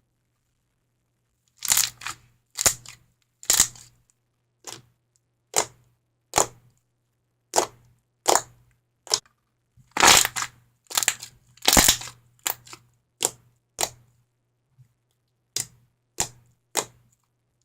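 Clicky homemade slime made from Elmer's glue and liquid starch with lotion, being pressed and stretched by hand, making sharp clicking pops at an irregular pace of about one or two a second, the loudest around the middle.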